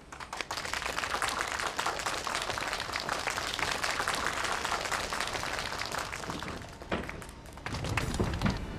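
Audience applauding with dense clapping, fading out about six seconds in. Near the end comes a heavy low thump and scuffle as a person falls.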